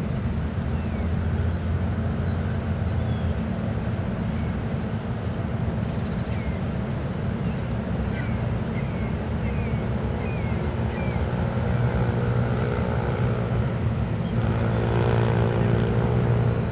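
Steady low drone of a self-unloading Great Lakes freighter's engines as the ship approaches slowly. About fourteen seconds in, the drone grows louder and a steady tone with several pitches joins it.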